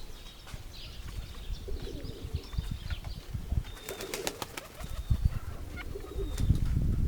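Domestic pigeons cooing, with wing flaps and a quick run of sharp claps about four seconds in, while small birds chirp. Gusts of wind rumble on the microphone, strongest near the end.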